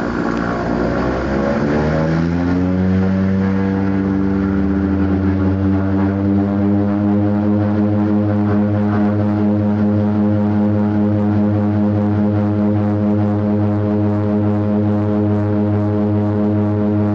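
Seaplane's propeller engine running up at takeoff power: its drone rises in pitch over the first two seconds or so, then holds a steady, loud drone. Hissing water spray off the float is mixed in over the first seconds.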